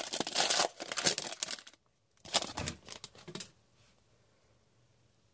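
Crinkling and tearing of a 2016-17 Upper Deck Artifacts hockey card pack's wrapper as it is handled and opened. The sound comes in two bursts, one ending just under two seconds in and a second from about two to three and a half seconds in, then it goes quiet.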